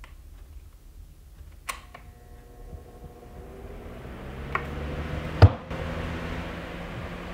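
Desk fan switched on with a click, its motor hum and rush of air building up over a few seconds against a microphone in a furry windscreen. About five and a half seconds in, a sharp knock as the boom pole hits a door.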